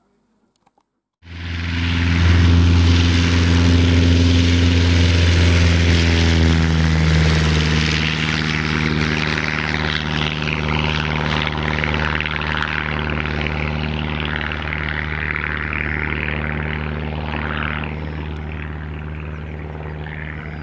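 Light aircraft's Continental O-200 four-cylinder air-cooled engine and propeller in flight, a loud steady drone that cuts in suddenly about a second in and slowly eases off toward the end.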